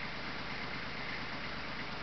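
Kubota B2400 compact tractor's diesel engine running steadily with a Lorenz 430 snowblower attached, a constant low rumble with an even higher whine over it.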